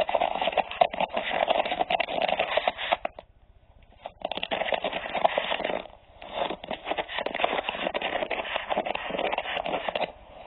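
Dense crackling and rustling noise from a field recorder, made of many rapid clicks. It drops out for nearly a second about three seconds in, and again briefly about six seconds in.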